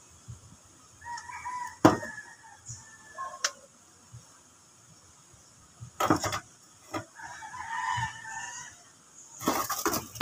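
A rooster crowing twice, a short call about a second in and a longer one near eight seconds, mixed with a few sharp knocks and rustles.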